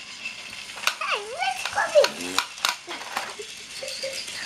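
Plastic toy train pieces clicking and clattering as they are handled, with a few short whining vocal sounds in between.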